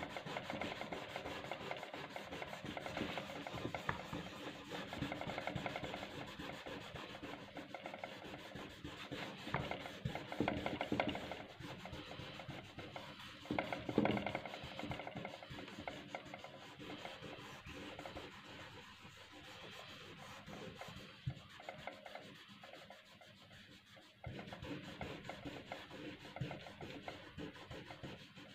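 A wrapped fingertip rubbing back and forth over drawing paper in quick short strokes, blending and smoothing pencil shading. The scratchy rubbing fades somewhat after the middle and picks up again about three-quarters of the way through.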